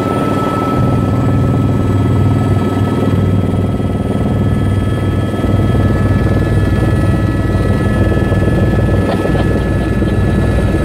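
Helicopter cabin noise in flight: a low, rapid beating from the rotor with steady high-pitched whining tones from the engine over it, heard from inside the cabin.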